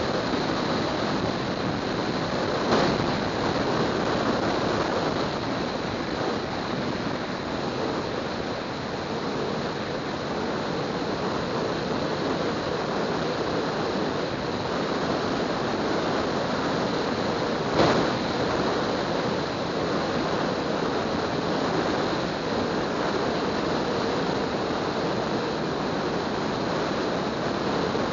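Steady rush of wind and road noise from a car driving at road speed, with two brief knocks, one about three seconds in and one about eighteen seconds in.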